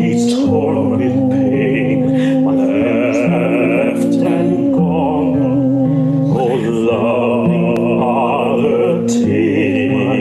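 Male voices singing a slow hymn together over sustained instrumental accompaniment, the notes held and changing every second or two.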